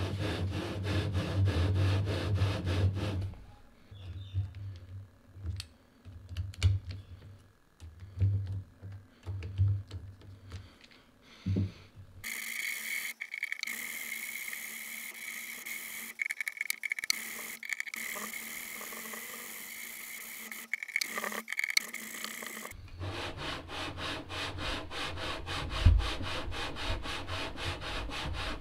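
A steel lapping bar being stroked back and forth through scope rings packed with 220-grit lapping compound: a gritty rubbing rasp repeated in quick strokes. The rubbing thins to scattered strokes for a while, and for about ten seconds in the middle it gives way to a steady hiss with a thin high whine.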